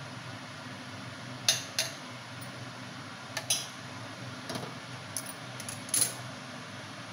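Light metallic clinks of a steel tea saucepan, strainer and pan tongs knocking against cups, the gas hob's grate and the counter, about seven clinks, the loudest about one and a half and six seconds in. Under them the steady low hum of the running kitchen chimney fan.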